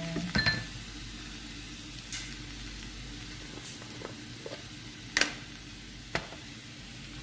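Diced bell peppers and tomato sizzling in a nonstick frying pan as they are stirred, with a few sharp clicks of the utensil against the pan, the loudest about five seconds in.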